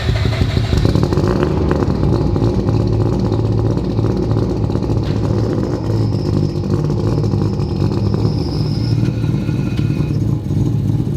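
Three-rotor rotary engine of a Mazda RX-7 running loud and steady at an even speed after being fired up.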